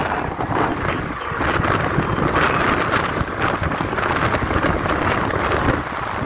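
Wind buffeting the microphone over the road noise of a moving vehicle, a rushing, fluctuating noise.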